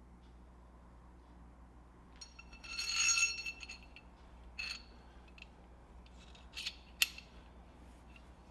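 Small metal parts clinking: a ringing metal clink about three seconds in, followed by a few short clicks and taps over a faint steady hum.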